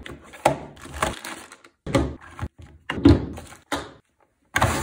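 A cardboard pistol box and an airsoft gas pistol with its magazine being handled and set down on a table. It makes a series of about seven sharp knocks and thunks with some rustle, several cut off abruptly.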